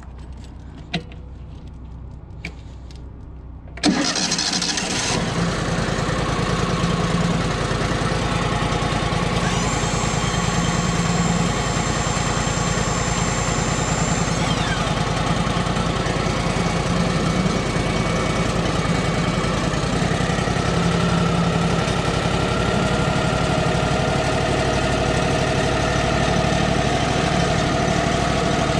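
A couple of sharp clicks at the control panel of a Wood-Mizer LT35 portable sawmill. About four seconds in, the mill's engine starts abruptly and then runs steadily, with a high thin whine joining for about five seconds in the middle.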